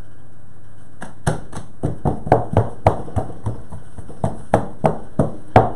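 Fingers pressing and patting the top sheet of focaccia dough down around the edges of the baking tin: a run of short taps, roughly three a second, starting about a second in.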